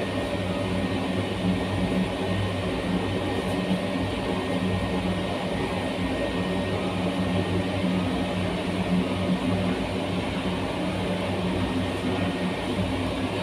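Crematorium furnace burner and blower running steadily: a constant rushing noise with a low hum underneath.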